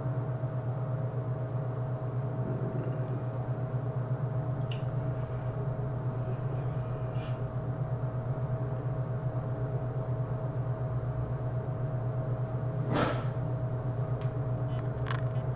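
Steady low hum with a thin steady tone above it, unchanging throughout, and a few light clicks in the second half.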